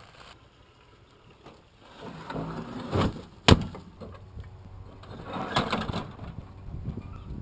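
Old metal oven door on a homemade smoker being handled: rustling, then a single sharp metal clack about three and a half seconds in as the door is shut, followed by more rustling.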